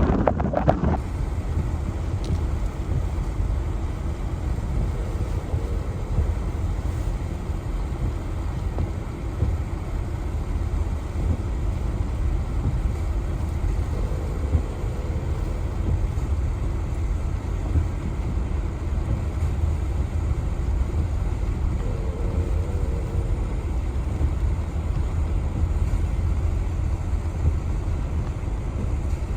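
Steady low rumble of a vehicle driving on a snowy mountain road, mixed with wind noise.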